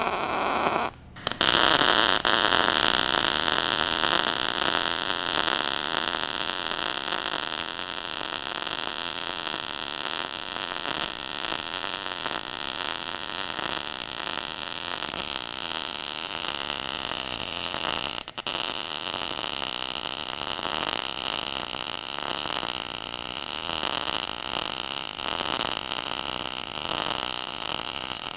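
Harbor Freight Titanium 140 MIG welder's arc crackling and sizzling steadily as a bead is laid. The arc breaks off briefly about a second in and then runs again, this time with 75/25 argon-CO2 (C25) shielding gas instead of straight CO2. It drops out again for a moment about two-thirds of the way through.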